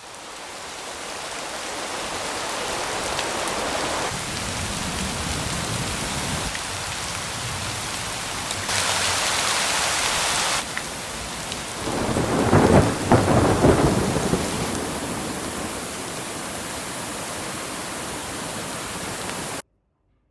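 Sound-design rain and thunderstorm ambience: a steady rain hiss fades in, a clap of thunder rumbles loudly about twelve seconds in, and the storm cuts off suddenly near the end.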